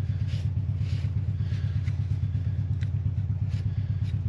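A steady, low, fast-pulsing machine hum runs throughout. Over it come several light clicks and bits of clatter as fuel pump assembly parts are handled.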